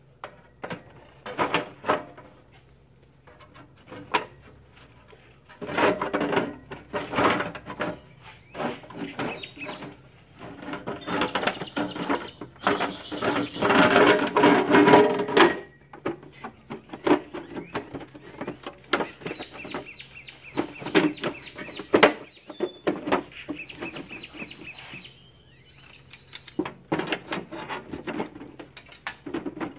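The sheet-metal cover of a Hypertherm Powermax 45 plasma cutter is lowered and worked back onto the chassis, giving scrapes, clunks and knocks. The lid fights going on. Rapid high chirping bird calls sound in the background, loudest in the middle.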